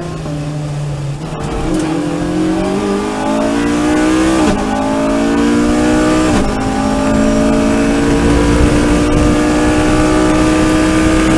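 Race car engine heard from inside the cabin, accelerating hard out of a corner. The pitch climbs in each gear and drops briefly at two quick upshifts, about 4.5 and 6.5 seconds in, while wind and road noise build with speed.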